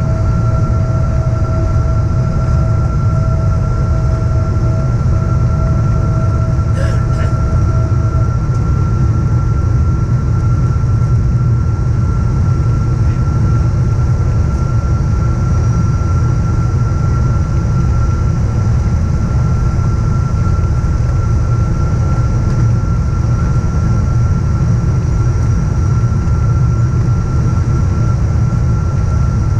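Steady cabin noise of a Boeing 777-236ER descending on approach, heard at a window seat over the wing: a loud low rumble of engines and airflow with a steady high whine. A second, lower whine stops about eight seconds in, and there is a single short click just before.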